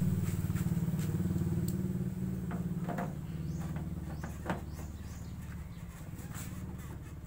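A small engine running steadily, slowly fading, with a few light clicks about three and four and a half seconds in.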